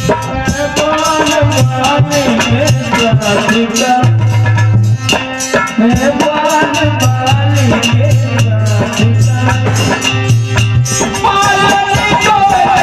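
Live folk devotional music: a harmonium playing a melody over a fast rattling shaker rhythm, with low held notes that stop and start.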